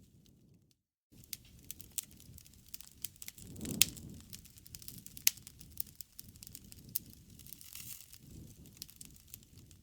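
Campfire burning, crackling with scattered small snaps over a low rush of flame, with two sharp pops about four and five seconds in.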